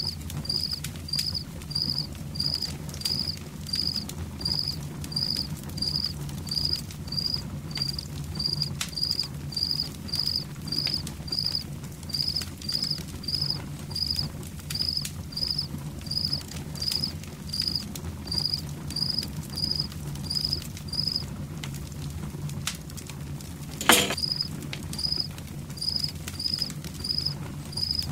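A cricket chirping in an even rhythm, a little under two chirps a second, that falls silent for about three seconds near the end and then starts again. Under it a campfire crackles faintly over a steady low rumble, with one sharp loud pop from the fire during the cricket's pause.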